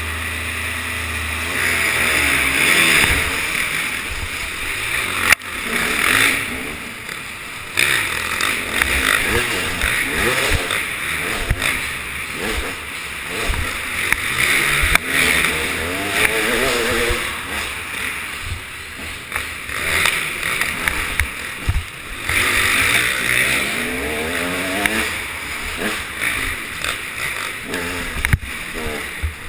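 Off-road dirt bike engine heard from the rider's helmet, revving up and down over and over as the bike is raced around a dirt track. The bikes are running at the start line at first and the revs climb about a second and a half in, with a sharp knock about five seconds in.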